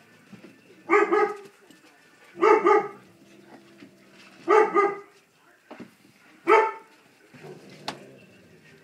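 Dog barking in play: four short bursts about two seconds apart, most of them a quick double bark.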